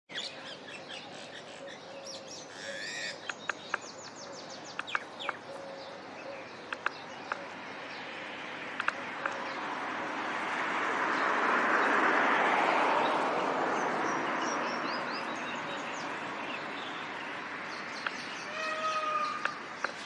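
Birds calling: many brief, high chirps scattered throughout, with a short repeated call carrying a few overtones near the end. Beneath them a rushing noise swells and fades, loudest about twelve seconds in.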